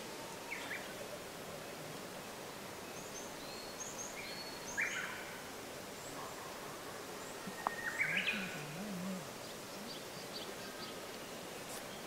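Woodland ambience: a steady background hiss with scattered short bird calls, the loudest about five seconds in and a cluster of calls around eight seconds.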